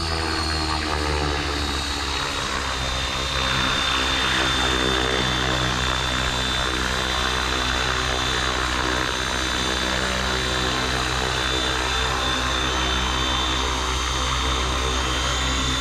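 Blade Fusion 550 electric RC helicopter running in flight and hovering low: the rotor blades hum and the motor whines high at a steady pitch.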